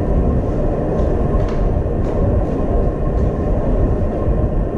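Steady low rumbling background noise, with a few faint light ticks about one to three seconds in.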